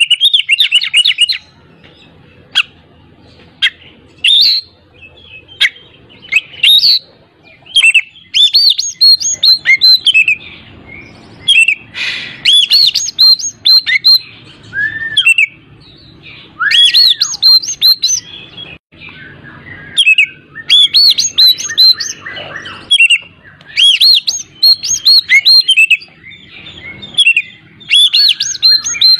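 Male Oriental magpie-robin (kacer) singing energetically: loud, varied phrases of clear whistles and rapid chattering trills, coming in quick bursts with short pauses between them.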